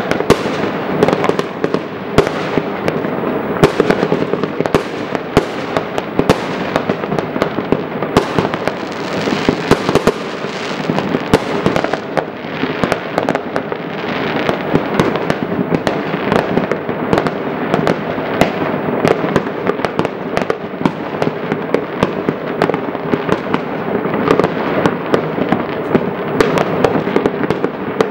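Many fireworks going off at once: a dense, unbroken barrage of overlapping bangs and crackles with no pause.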